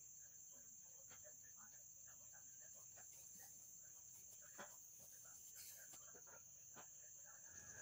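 Faint, steady high-pitched trilling of crickets at night, with a few soft rustles of bedding as someone shifts under a sheet.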